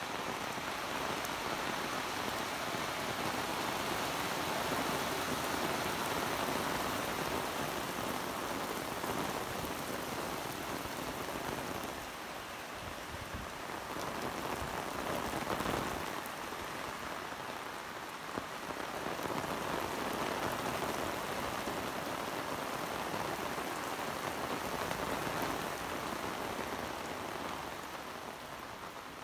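Heavy rain falling steadily, a dense even hiss of drops striking the ground, with the loudness easing slightly twice around the middle.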